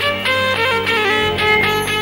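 Live Middle Eastern wedding-band music: a fast, ornamented instrumental melody with a violin-like lead over a steady low backing.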